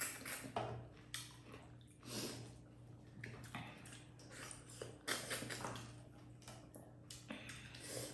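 Wet chewing and squishing mouth sounds of a person eating dhido with chicken curry, in short irregular bursts with small clicks. A faint steady hum lies underneath.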